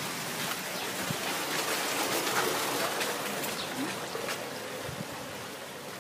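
Steady rush and splash of water falling into the tanks of a recirculating fish-farm filtration system, swelling about two seconds in and easing slightly near the end.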